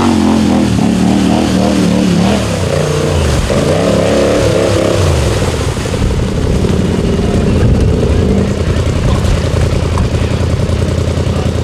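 ATV engine revving hard, its pitch rising and falling a few seconds in, then held at high revs.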